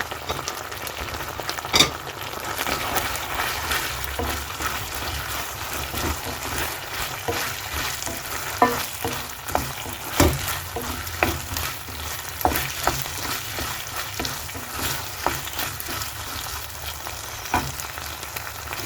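Fried cauliflower being stirred into a thick, cornflour-bound Manchurian sauce in a pan on high flame: steady sizzling, broken by irregular knocks and scrapes of the spoon against the pan.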